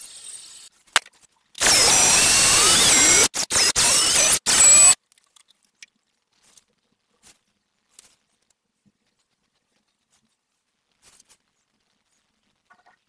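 Cordless drill spinning a paddle mixer in a plastic cup of resin, with a wavering whine: one run of over a second, then three short trigger bursts, stopping about five seconds in.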